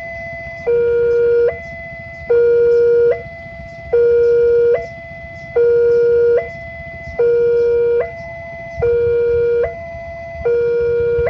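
Level-crossing warning alarm sounding a two-tone hi-lo signal that switches pitch about every 0.8 s, the lower tone louder. Beneath it is a low rumble that grows heavier near the end.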